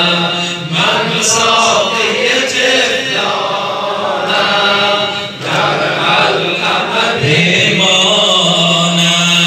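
A group of men chanting a Shia mourning lament (noha) together, with a short dip about five seconds in.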